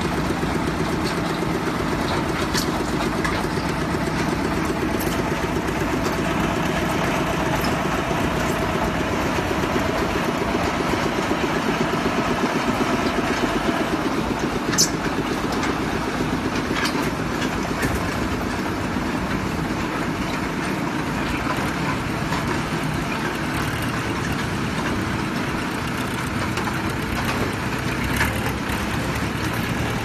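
Trailer concrete mixer pump running steadily while mixing and pumping concrete, its engine and machinery giving an even mechanical din. A few sharp clicks sound over it, the loudest about halfway through.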